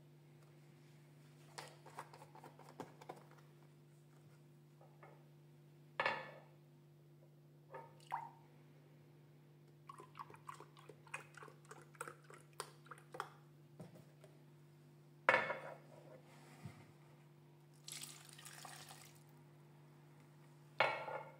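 Milk poured from a carton into a glass mug, with quick dripping and gurgling, then tipped from the mug into a plastic mixing bowl. A few sharp knocks of the mug and carton being set down on a marble counter, over a faint steady low hum.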